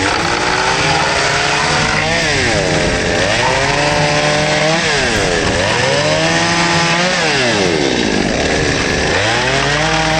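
Chainsaw cutting through pallet 2x4s. Its engine pitch sags under load and climbs back again several times.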